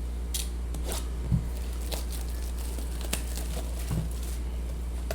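Trading-card hobby boxes and packs being handled and opened: scattered short clicks, scrapes and crinkles, with one dull thump about a second in, over a steady low electrical hum.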